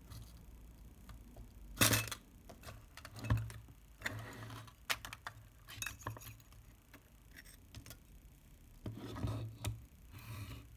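Small metal and glass parts of a Rolleiflex Standard twin-lens reflex camera being handled during disassembly: scattered sharp clicks and light clinks as the viewfinder hood and glass focusing screen are lifted off. The loudest click comes about two seconds in, with a cluster of handling noises near the end.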